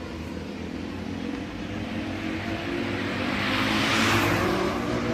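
Road vehicles' engines running and growing louder, with one vehicle passing close by about four seconds in.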